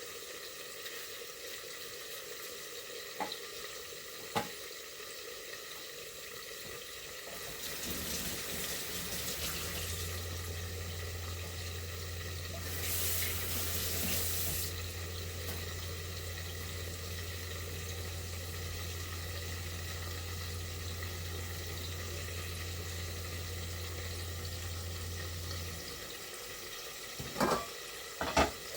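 Kitchen tap running into a sink, turned on about eight seconds in and off a few seconds before the end, with a steady low hum while it runs. There are a few sharp knocks, two early and two near the end.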